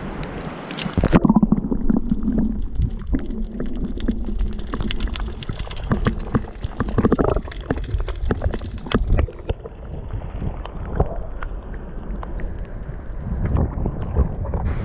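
Muffled underwater sound from a submerged camera: low gurgling and sloshing with scattered clicks and knocks, the upper range cut off. A splash about a second in as it goes under; near the end it comes back up into wind and waves.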